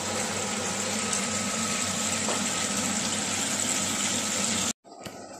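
Shrimp fritters sizzling in hot oil in a frying pan: a steady, dense sizzle with a low hum underneath, cutting off suddenly near the end.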